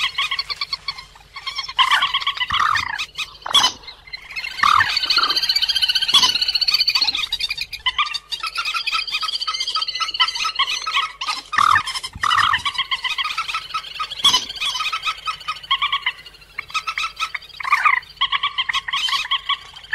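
Recorded calls of the cuốc biển, a rice-paddy waterbird of the rail family, used as a trapping lure: a dense run of rapid, repeated calls with several voices overlapping, broken by a few short sharp notes.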